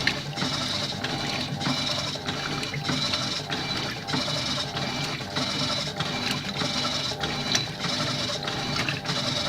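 Electrolux washing machine in turbo agitation, its motor and agitator churning the water in a steady, even rhythm of about two strokes a second, with a constant high whine over it.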